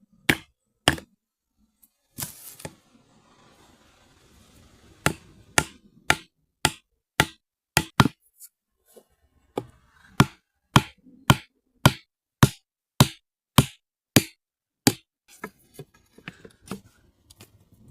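Axe chopping into wood: two blows, a pause with a rustle, then a long steady run of sharp chops at about two a second, ending in a few lighter knocks.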